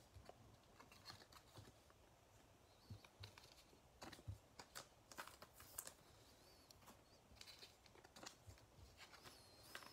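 Faint, scattered clicks and rustles of trading cards being shuffled through by hand and set down.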